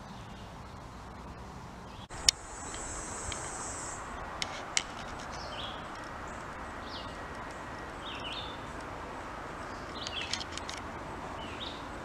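Birds chirping in short, down-slurred calls every second or two over steady outdoor background, with a high insect buzz for a couple of seconds near the start. A sharp click about two seconds in is the loudest sound, followed by a few fainter clicks.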